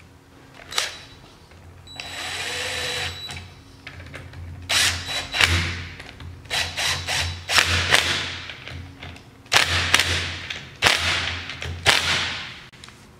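Cordless DeWalt power driver running bolts in: one longer run about two seconds in, then a string of about seven short bursts.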